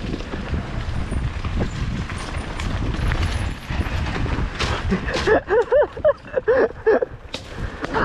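Specialized Demo 8 downhill mountain bike rolling fast over a dirt trail: steady tyre rumble and rattle, with scattered sharp clicks and knocks. From about five seconds in, a voice calls out in a run of short rising-and-falling cries.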